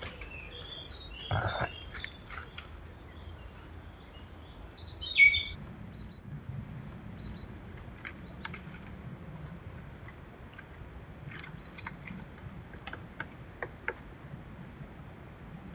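Woodland birds chirping and calling, with one loud call falling in pitch about five seconds in. Scattered sharp taps follow in the second half.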